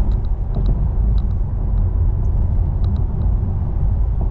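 Steady low road and tyre rumble inside the cabin of a Tesla Model 3 cruising at highway speed, with a few faint light ticks.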